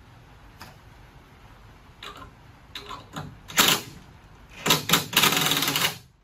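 DeWalt cordless driver driving a deck screw into a wooden blocking board between floor joists: a few clicks, a short burst, then a longer run of about a second and a half with a rapid rattle that stops suddenly.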